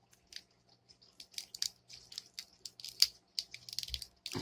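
Packaging being handled and opened by hand: irregular small crinkles and clicks, a little louder near the end.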